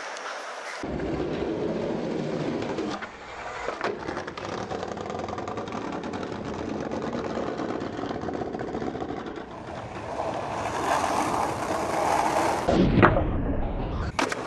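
Skateboard wheels rolling over rough pavement, a steady rumble with rapid clicks and knocks from the board. A sharp, loud knock of the board near the end.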